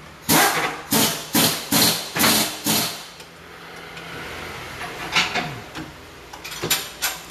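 Hammer blows on metal at a car's rear suspension arm as the rod-end joint is knocked out: about six sharp strikes half a second apart, then a few lighter knocks near the end.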